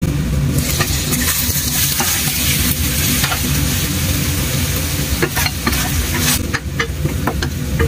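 Chicken and kimchi sizzling in a stainless steel frying pan while a spatula stirs them. A steady frying hiss is interrupted by sharp scrapes and knocks of the utensil against the pan in the second half.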